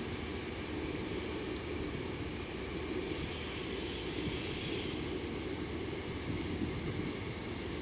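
JNR DD51 diesel-hydraulic locomotive running at low speed, a steady low engine rumble as it creeps forward. A high-pitched whine is heard for about two seconds in the middle.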